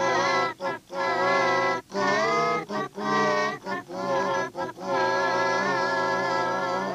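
A voice singing a melody in short, wavering phrases over musical accompaniment.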